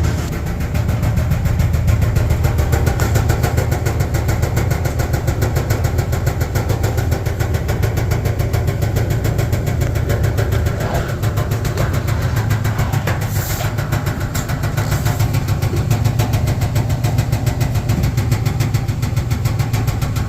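Clothes dryer running with an abnormal noise: a loud, steady low drone with a fast, even rattle.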